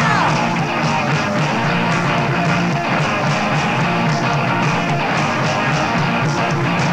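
Rock band recording playing: electric guitars, bass and drums at a steady beat, with a sung note falling away at the very start and no singing after it.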